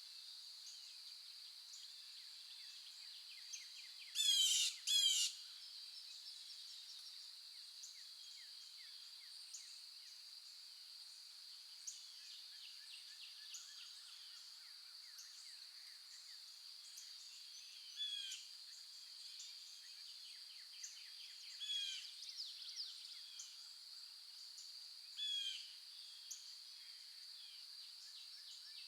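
Songbirds chirping and calling. The loudest are two quick runs of rapid chirps about four seconds in, with shorter calls several times later, all over a steady high-pitched drone.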